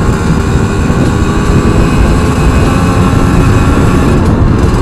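A Yamaha RX Special's two-stroke single-cylinder engine running at a steady, gentle throttle while the bike is ridden, mixed with heavy wind noise on the handlebar-mounted microphone.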